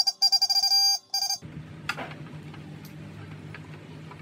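Motorcycle electric horn tested from the handlebar switch: a shrill electronic beep sounded in three quick presses, the middle one longest, over the first second and a half. A click follows, then a low steady hum.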